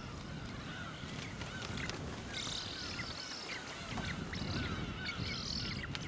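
A seabird colony of gulls calling: many short, nasal, honking calls overlap and repeat. Two bursts of higher hissing come about two and a half seconds in and again near the end.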